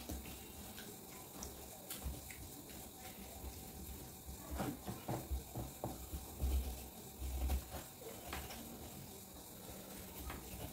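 Metal spoon scooping and scraping the flesh of a half watermelon, with small wet clicks and scrapes and a run of dull thumps near the middle.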